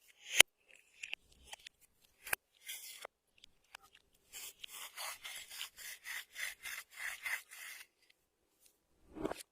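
A quick run of about ten raspy scraping or rubbing strokes, roughly three a second, likely from hands working at slime or makeup. A sharp click comes just before them, near the start, and a dull thump near the end.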